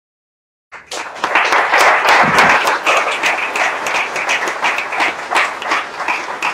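Audience applauding, many hands clapping at once, starting suddenly less than a second in and carrying on steadily.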